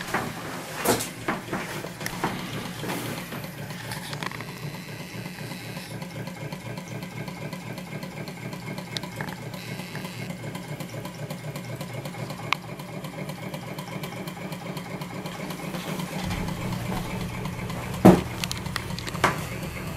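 Reichelt model Stirling engine running steadily, with a fast, even mechanical clatter. A few sharper knocks stand out, the loudest near the end.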